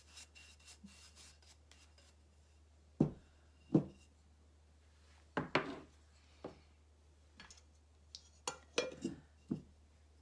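Soft brushing as wax is rubbed onto a chalk-painted terracotta pot, then a run of irregular knocks and clatters from about three seconds in as the pot and tools are handled and set down on the work board.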